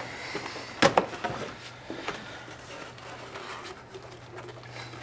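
The electric coolant pump of the charge air cooler circuit runs with a steady low hum while coolant is drawn down from the overfilled reservoir to purge air. A single sharp knock comes a little under a second in, along with light handling noise.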